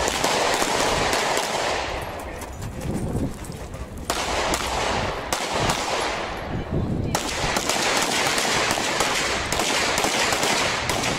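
Rapid strings of shots from compensated Open-division race pistols, several shots a second, loud through most of the stretch, with a quieter lull about two to four seconds in.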